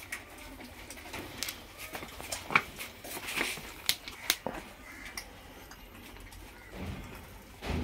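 Several young puppies lapping milk from a steel plate: quick, irregular wet clicks and slurps. There are low thumps near the end.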